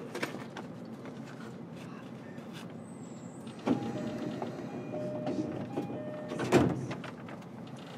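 Inside a JR East E233-7000 series commuter train car with a steady low hum, as at a standstill. A sudden clunk comes about four seconds in, and a louder thump about two and a half seconds later, typical of the sliding passenger doors working.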